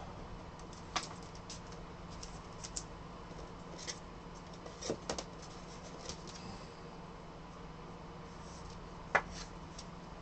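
Trading cards and clear plastic card holders being handled: a few sparse light clicks and rustles over a faint steady hum.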